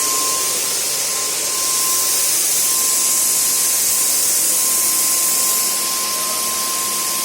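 Paint sprayer spraying steadily: a loud, even hiss of atomised paint with a thin steady whine underneath.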